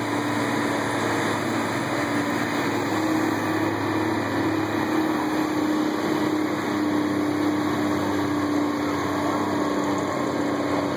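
Caterpillar Challenger MT765C rubber-tracked tractor's diesel engine running steadily under heavy load as it drags a weight-transfer pulling sled.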